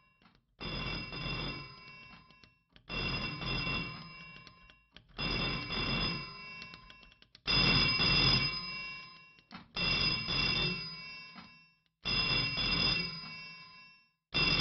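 Candlestick telephone's bell ringing over and over, each ring starting suddenly and fading away, about every two and a half seconds.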